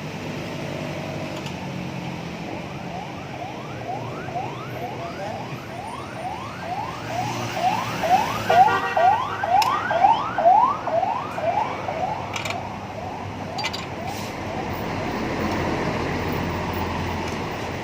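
Repeated rising squeak, about two a second, that grows louder around the middle and then dies away; a few sharp clicks follow.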